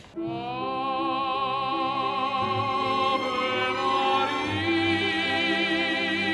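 Operatic singing with orchestral accompaniment: a voice holding long notes with a wide vibrato, starting abruptly.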